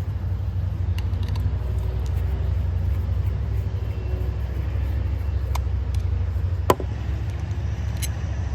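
A steady low rumble of background noise, with a few small clicks and taps from a Stanley utility knife and screwdriver being handled. A sharper click comes about three-quarters of the way through.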